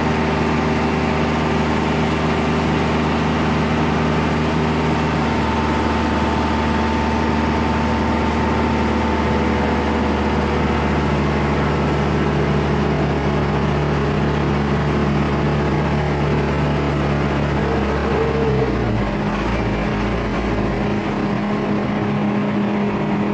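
Crane's diesel engine running steadily while it hoists and lowers a heavy load. Its note changes a few times and settles lower about 19 seconds in.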